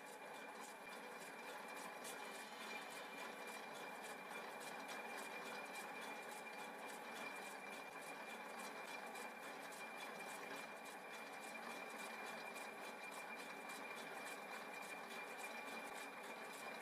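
Centre lathe running at a slow spindle speed for thread cutting: a faint, steady mechanical hiss with a thin steady whine and fine ticking.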